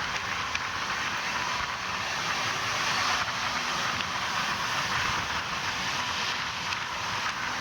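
Steady running noise of a moving train: a constant rush of wheels on the track and air streaming past.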